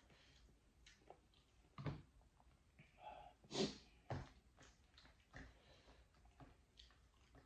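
Faint hand-eating sounds: rice and lentil dal being mixed and squeezed by hand on a plate, with scattered soft clicks and a few short louder noises, the loudest about three and a half seconds in.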